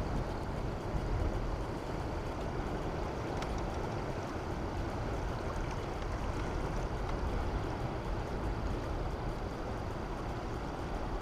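Steady rushing outdoor noise: wind buffeting the microphone over the churning water below a dam's spillway, with a faint steady high whine.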